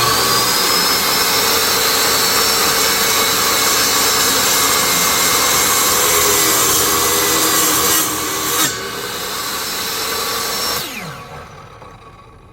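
Ryobi table saw running: the motor's whine rises as it starts, the blade rips through a board for about eight seconds, then runs free more quietly and winds down with a falling whine near the end after being switched off. The blade is set too low to cut all the way through the board.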